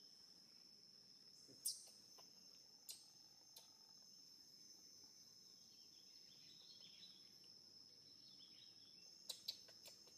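Faint, steady high-pitched drone of an insect chorus, with a few sharp clicks: one about two seconds in, two more soon after, and a quick group of three near the end.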